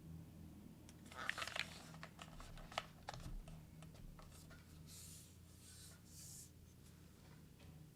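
Faint keystrokes on a custom mechanical keyboard with lubed Cherry MX Black linear switches on an aluminium plate and GMK keycaps: a quick cluster of clicks about a second in, one sharp click near three seconds, then a few lighter taps. Two soft hissing rustles follow near the end, over a faint low hum.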